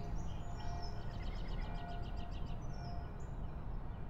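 Outdoor ambience with a songbird singing: a rapid trill of repeated high notes for about a second and a half, followed by a few short chirps, over steady low background noise.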